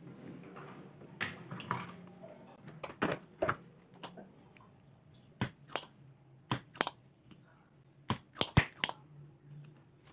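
Irregular sharp clicks and taps of small tools and parts being handled while a component is detached on a workbench, with a cluster of louder knocks about eight seconds in.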